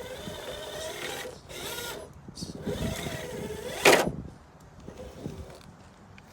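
Electric motor and gears of an RC rock crawler whining as it drives, then one sharp knock about four seconds in as its 3D-printed PLA front bumper taps into an obstacle.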